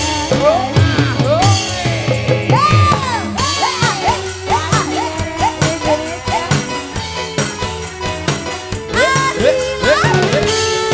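A campursari koplo band playing live: a steady drum beat under a high, wavering melody line.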